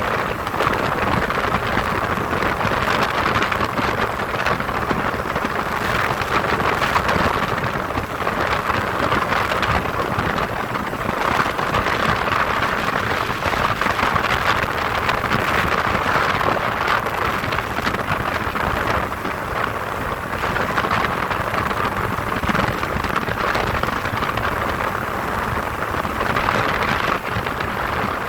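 Steady rushing noise of wind and engine aboard an ultralight aircraft in flight, with no clear engine tone standing out above the rush.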